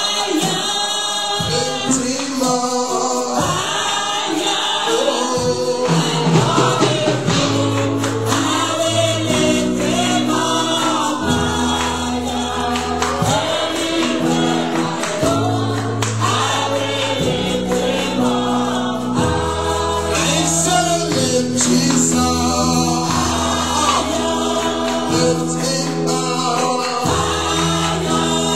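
Gospel worship song sung by a group of voices, with held bass notes joining about six seconds in.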